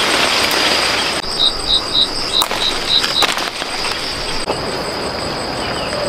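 Outdoor orchard ambience: leaves and branches rustling under a steady high whine, with a run of seven short, evenly spaced high notes about a second and a half in and a few sharp clicks.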